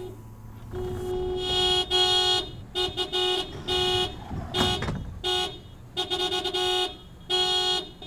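Car horn honking over and over, starting about a second in: one steady pitch sounded in many blasts of uneven length, some long and some short, with short gaps between.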